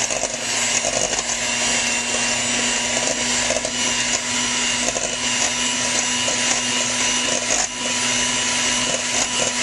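Electric hand mixer running steadily, its beaters whipping egg whites in a stainless steel bowl.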